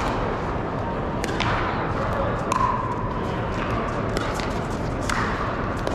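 Pickleball paddles popping against plastic balls: sharp hits from this court and neighbouring ones, echoing in a large hall. The loudest come about a second in and again about five seconds in, over a steady background of crowd chatter.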